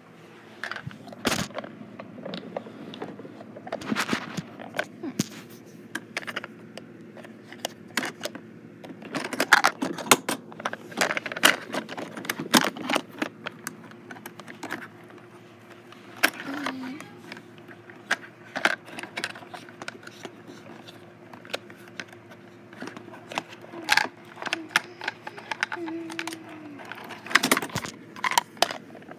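Irregular clattering and knocking as things are handled close to a phone's microphone: many sharp clicks and knocks, some bunched in quick runs, over a faint steady hum.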